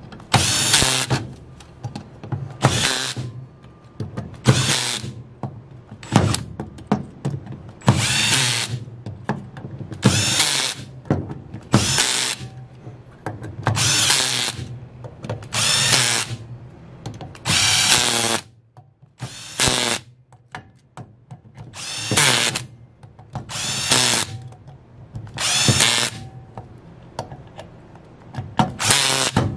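Cordless drill-driver running down the screws of an automatic transmission valve body. It makes short spins about every two seconds, one screw at a time, about fifteen in all.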